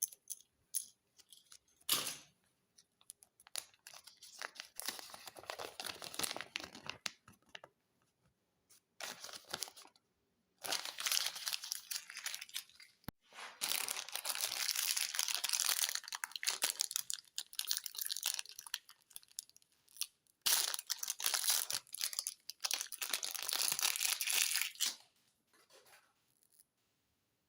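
Plastic foil wrappers of Kinder Joy eggs being torn open and crinkled, in several long stretches of crackling, with a few sharp clicks in the first seconds.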